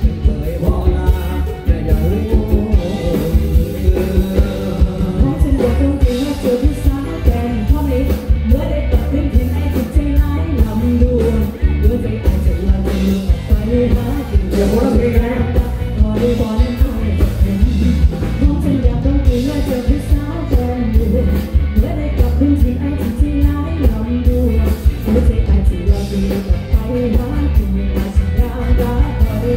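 Live rock band playing through a PA system: singing over electric guitar, bass and drums, with a steady beat.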